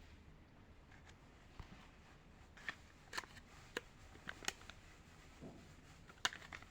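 Faint, scattered clicks and crinkles of candy packaging being handled, about half a dozen sharp ticks spread out with quiet between them.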